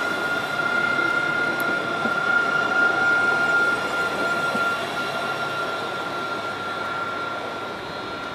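Alstom Citadis 302 tram running through a curve and moving away, its wheels giving a steady high-pitched squeal over the rumble of wheels on rail. It grows fainter from about halfway.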